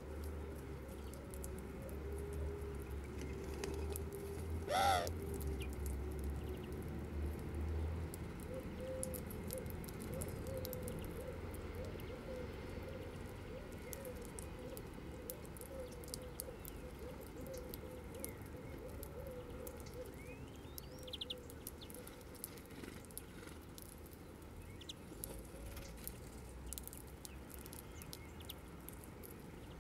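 Eurasian collared doves cooing softly and repeatedly, with one short sharp bird call about five seconds in. Faint small clicks of seeds being pecked and cracked run throughout.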